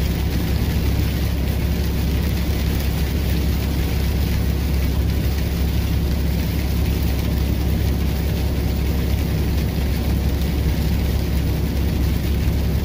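Steady drone of a big-rig truck's engine and tyres on a wet highway, heard inside the cab, with the hiss of rain on the truck and windshield.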